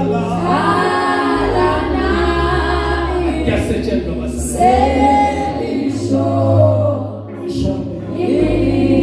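Church worship singing: a man leads a slow worship song into a microphone while other voices sing along, over held low notes that change every few seconds.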